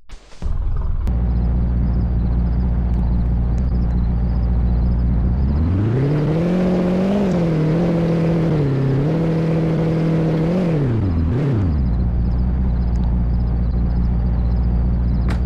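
An engine starts about half a second in and idles, is revved up and held at higher speed for about five seconds, then drops back to idle with a brief blip.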